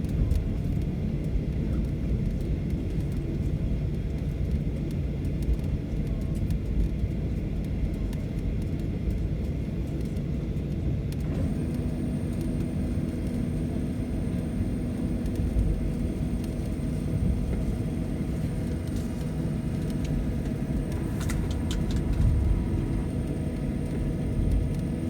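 Steady low rumble of a Boeing 737's engines and airflow inside the passenger cabin. About eleven seconds in, a set of steady hums and a faint high whine joins the rumble.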